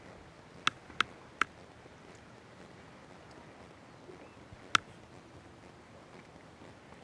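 Four short, sharp clicks over a faint steady hiss: three in quick succession in the first second and a half, and one more a little before five seconds in.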